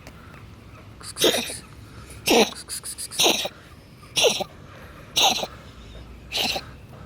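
Cat coughing in a series of six short hacks, about one a second, each with a brief falling pitch.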